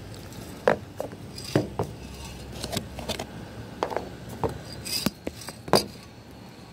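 A dozen or so sharp, irregular taps and clicks spread over about five seconds, hard and clinking, the loudest about a second in and near the end.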